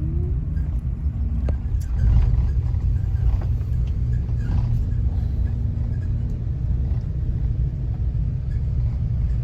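Bus engine and road noise: a steady low rumble with a constant hum above it, and a short rising engine tone right at the start.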